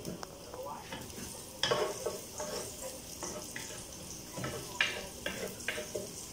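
Minced garlic sizzling in hot oil in a pot while a wooden spatula stirs it. A few sharper scrapes and knocks of the spatula against the pot come about a second and a half in and several more near the end.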